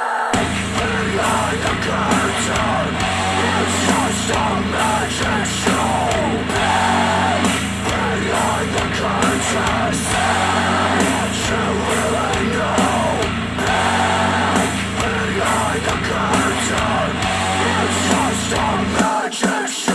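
Music played through Dayton Audio B452 bookshelf speakers powered by a Yamaha A-S301 integrated amplifier: a full-band track with a steady beat and strong bass, the bass dropping out briefly near the end.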